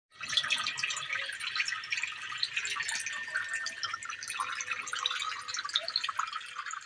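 Small stream of water trickling and splashing steadily in a homemade plastic-bottle waterfall fountain, a dense patter of fine drips.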